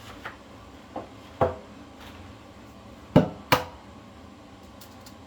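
Kitchenware knocking on a counter. There are two light knocks in the first second, a sharper one about a second and a half in, and two sharp knocks close together just after three seconds.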